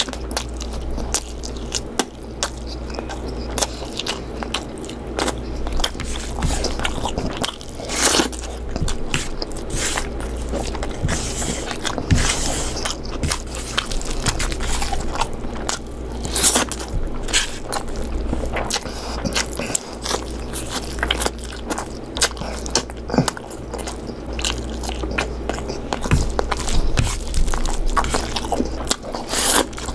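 A person eating chicken curry: chewing and biting, heard as many short, irregular clicks, with a steady low hum underneath.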